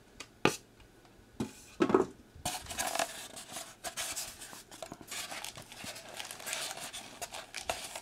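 A few light knocks from a styrofoam packing tray being handled, then clear plastic bags rustling and crinkling in the tray from about two and a half seconds in.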